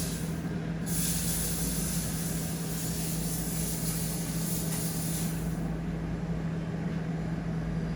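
Steady machine hum with a hiss on top; the hiss fades out about five and a half seconds in.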